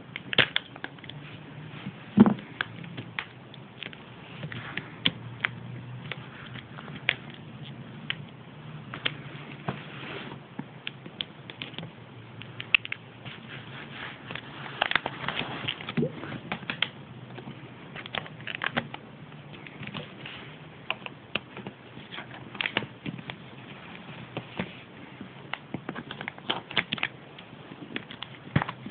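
Hands handling and opening small plastic drink packaging and toy wrappers: irregular crinkling, clicking and tapping, with a loud knock about two seconds in.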